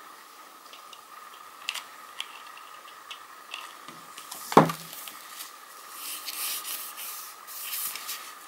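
Paper being handled and pressed on a work table while a pocket is glued shut: light clicks and taps, one sharp knock about halfway through, then paper rubbing and rustling near the end. A faint steady whine runs underneath.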